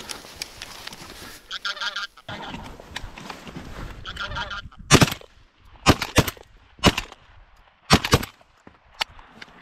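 Geese honking for the first few seconds, then a quick volley of shotgun shots from the hunters' shotguns, about six sharp reports in four seconds, two of them almost together.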